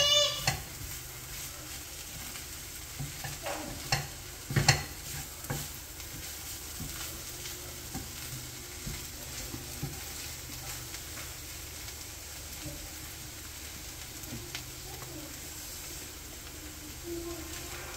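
Green beans thoran frying in a nonstick pan over a gas flame, sizzling steadily while a wooden spatula stirs and scrapes through the beans. A few knocks of the spatula on the pan come about four to five seconds in.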